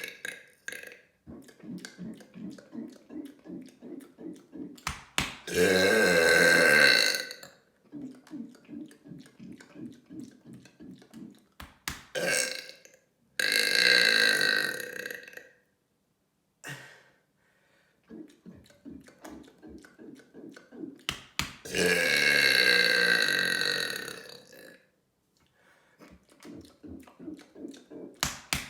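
A person letting out deliberate, long, loud burps: three big ones of about two to three seconds each. Before each one comes a few seconds of quick, rhythmic short pulses.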